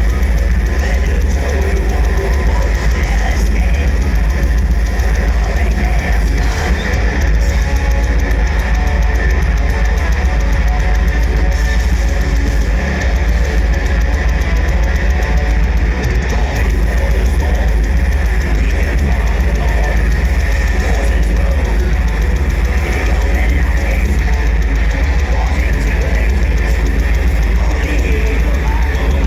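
Heavy metal band playing live at full volume: distorted electric guitars, bass and drum kit, a dense and steady wall of sound.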